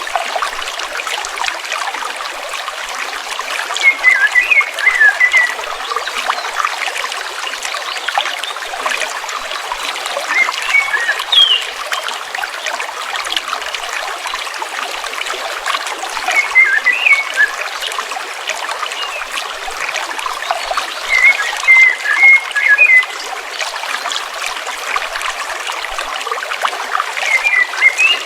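A stream trickling and babbling steadily over rocks. A songbird sings short twittering phrases over it, about every five or six seconds.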